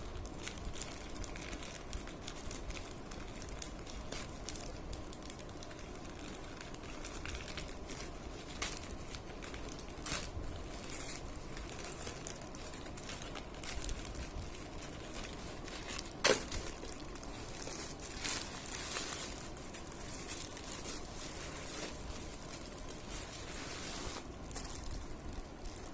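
Plastic parcel packaging crinkling and rustling on and off as it is handled, with one sharp click about sixteen seconds in.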